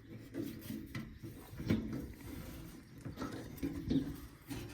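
Irregular light clicks, taps and small rattles of metal parts being handled.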